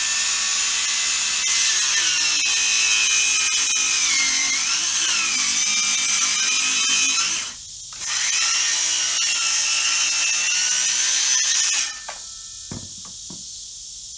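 Cordless circular saw ripping a long board lengthwise. It cuts for about seven seconds, with its whine sagging in pitch for a moment midway, stops briefly, then cuts again for about four seconds. A few light knocks follow after it stops near the end.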